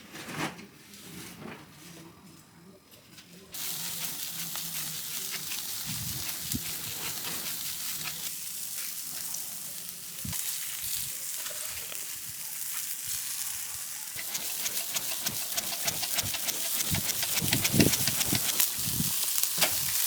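Food sizzling in hot fat, the sizzle starting suddenly about three and a half seconds in and running on as a dense crackling hiss, with a few soft knocks.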